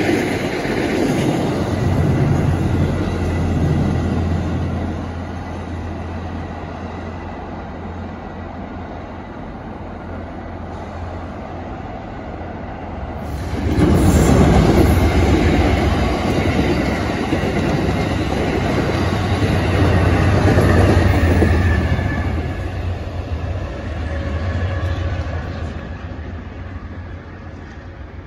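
An MBTA commuter rail train rolls past, its sound easing off after about five seconds. About thirteen seconds in, a second passenger train, Amtrak, comes by much louder all at once, runs past for several seconds, then fades away near the end.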